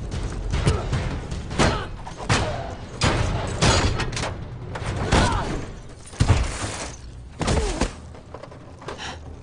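Movie fight sound: people grunting and crying out with effort while struggling, broken by thuds and blows as bodies hit the sand, one of the hardest hits a little past six seconds in.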